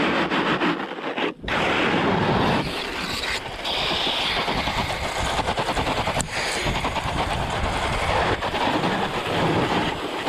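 A snowboard ploughing through deep powder snow: a loud, steady rushing noise with a rapid crackle as snow sprays over the camera. It briefly drops out about a second and a half in.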